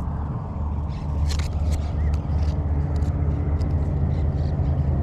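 A motor running steadily with a low, even hum, with a few light clicks and ticks over it.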